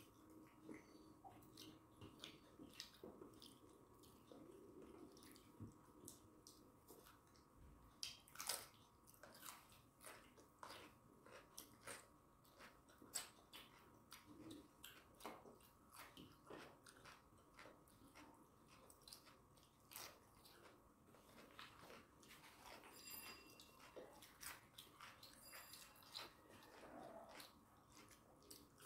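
Faint chewing and mouth sounds of two people eating rice and chicken curry by hand, with scattered soft clicks and scrapes of fingers on steel plates. A few louder clicks stand out about eight and thirteen seconds in.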